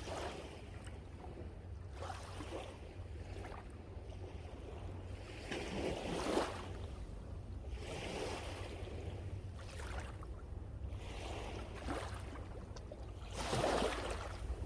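Sea waves washing in and drawing back, surging and fading every couple of seconds, loudest near the end, over a steady low rumble of wind on the microphone.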